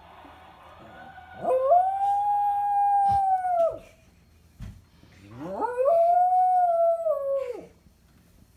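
A small terrier-type dog howling twice, each howl rising quickly, holding steady and then dropping away, like a siren: the dog is imitating a fire-truck siren.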